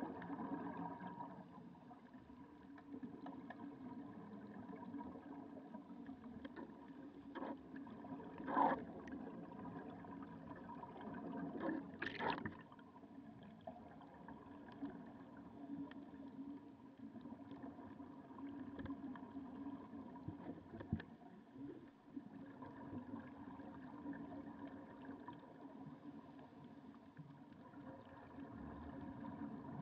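Muffled underwater ambience picked up by a submerged camera: a faint steady hum with a few short knocks, the loudest about eight and a half and twelve seconds in.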